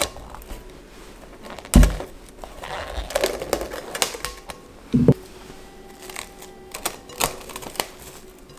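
Plastic cling wrap crinkling and crackling as it is pulled off its roll, stretched over a glass mixing bowl and pressed around the rim, with scattered sharp clicks. Two dull knocks, about two and five seconds in.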